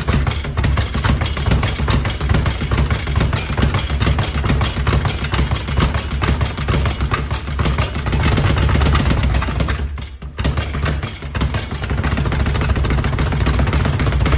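Speed bag being hit in a fast, continuous rattle against its rebound platform, with a short break about ten seconds in.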